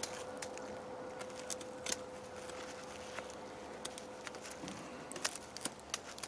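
Fixed-blade knife carving into a hardwood branch: irregular small clicks and scrapes as the blade bites and shaves the wood.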